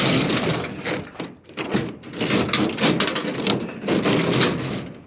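Scrap being handled: wire and debris rustling and scraping in several loud surges, stopping abruptly near the end.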